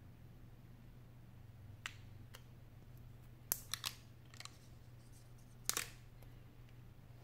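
Scattered small clicks and taps of a Sony Xperia Z2's glass back panels being handled and set against each other, a few single clicks then short clusters, over a low steady hum.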